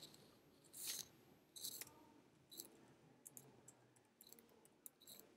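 Faint computer keyboard keystrokes: two softer taps about one and two seconds in, then a scattering of short clicks.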